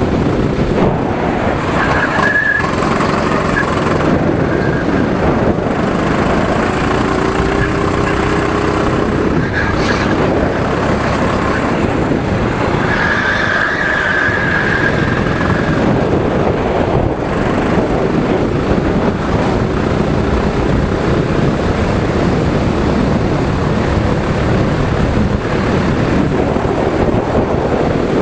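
Onboard sound of a drift vehicle's engine running hard around a track, its pitch rising and falling with the throttle. Tyres squeal briefly about two seconds in, and again for a couple of seconds around the middle as it slides through a tight corner.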